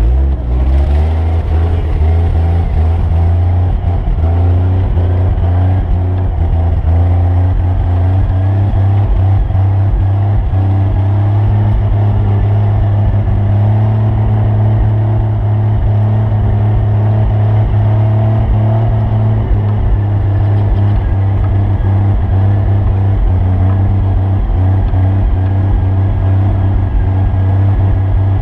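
A vehicle engine picking up speed over the first couple of seconds, then running at a steady, fairly high speed under load.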